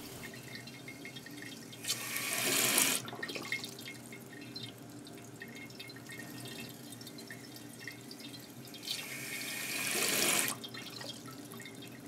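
Toilet tank fill valve hissing on twice, each time building for a second or so and then shutting off, with faint trickling and dripping of water into the tank between. It is topping off water that leaks away past a cracked flapper and a corroded flush valve seat.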